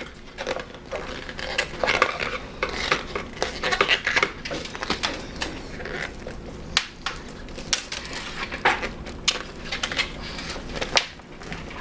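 Handling noise from a tight butyl-rubber second skin being worked off an M40 gas mask facepiece: irregular scratchy rubbing with many small clicks and knocks.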